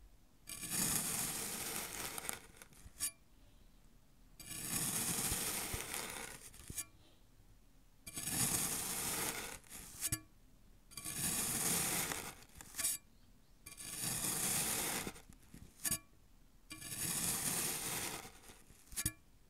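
A knife slicing down through a slab of kinetic sand six times at a slow, even pace. Each cut is a gritty, crunching hiss lasting a second or two, and a short sharp tap follows in the quiet before the next cut.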